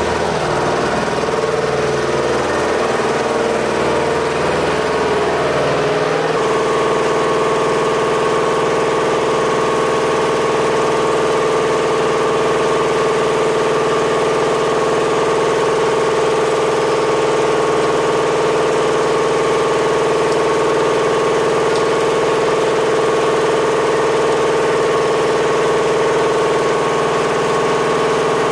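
Engine idling steadily, a constant hum with a strong steady tone. About six seconds in, a wavering, uneven engine sound gives way to a steadier one.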